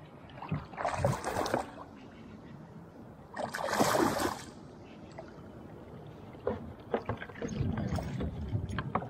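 A buzzbait being retrieved across the water from a kayak, with two short bursts of hiss. Near the end a smallmouth bass strikes and splashes at the surface as it is hooked.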